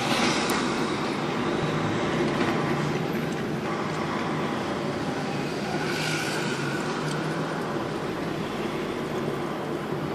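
Lorry engine running and road noise heard from inside the cab while driving slowly in traffic, a steady low hum under a constant rumble. Short bursts of hiss come right at the start and about six seconds in.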